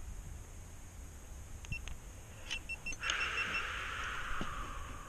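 Action camera beeping: a quick run of short, high beeps about two to three seconds in, as the camera on the kayak is switched off. Wind rumbles on the microphone throughout, and a steady hiss comes in about three seconds in.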